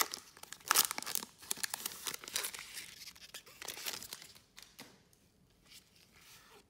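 Foil wrapper of a Goodwin Champions trading-card pack being torn open and crinkled by gloved hands, loudest about a second in. The crackling dies down after about four and a half seconds to quieter handling of the cards.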